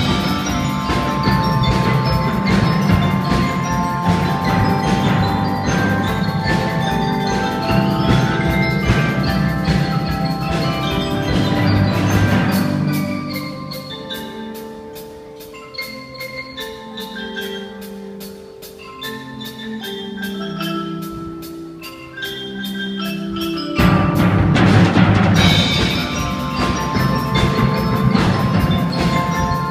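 Youth percussion ensemble playing: marimba and other mallet instruments carry the melody over drums. About halfway through it drops to a quieter passage of low mallet notes over a steady fast ticking, then the full ensemble comes back in loud near the end.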